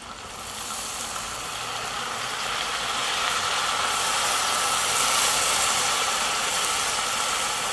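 Red wine poured into a hot cast-iron Dutch oven, sizzling and hissing as it hits the hot pot and seared meat while deglazing. The sizzle builds over the first few seconds and then holds steady.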